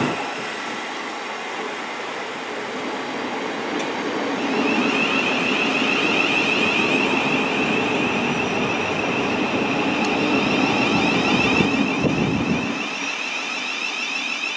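Thameslink Class 700 electric multiple unit running along a station platform, its wheels and running gear rumbling. A steady high electric whine from the traction equipment sets in about four seconds in. The low rumble drops away near the end while the whine continues.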